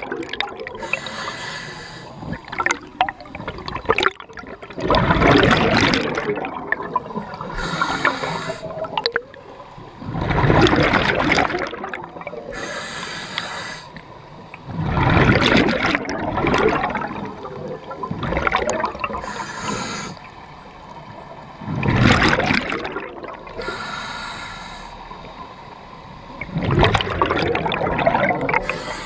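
Scuba diver breathing through a regulator underwater: a short hissing inhale, then a longer rush of exhaled bubbles, repeating about every five seconds.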